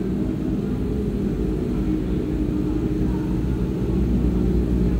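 Kawasaki ZX-25R's 250 cc inline-four engine running steadily under way, over a low rumble, and getting a little louder about four seconds in.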